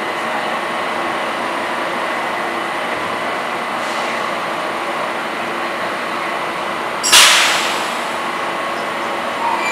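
Washington Metro 2000-series subway car standing at an underground platform, its equipment giving a steady hum. About seven seconds in comes a sudden loud hiss of air that fades away over about a second.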